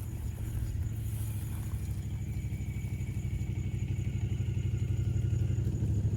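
Car engine running at low speed, a steady low throb that grows gradually louder.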